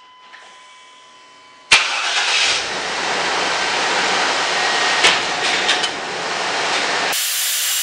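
Chevrolet pickup truck engine starting on a freshly installed battery: it cranks briefly and catches about two seconds in, then runs steadily.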